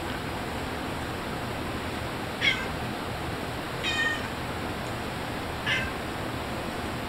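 Calico cat meowing three times, short calls about a second and a half apart, over a steady hiss.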